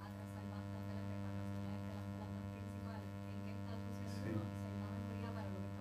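Steady electrical mains hum, a low buzzing drone with faint voices underneath.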